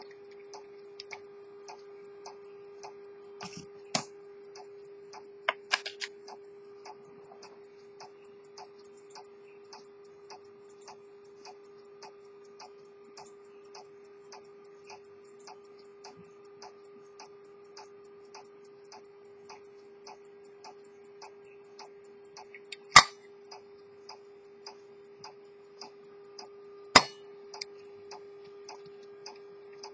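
Edmond Mathey-Tissot minute-repeater pocket watch ticking, an even, rapid run of light ticks from its escapement over a steady low hum. A few much louder sharp clicks break in, about four and six seconds in and twice in the last third, from the hinged gold case being handled.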